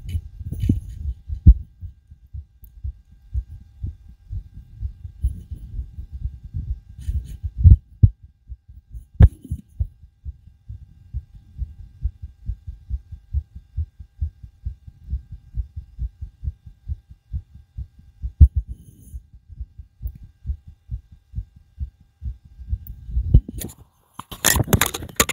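Human heartbeat picked up through a homemade stethoscope microphone, thumping hard and fast after exertion on the trampoline. A few louder knocks stand out, and near the end there is a burst of rubbing noise on the microphone.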